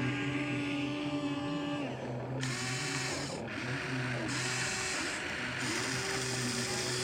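Small electric motors and plastic gearboxes of a toy RC excavator whirring as it works, with the whir cutting in and out and changing pitch every second or so as different motions start and stop.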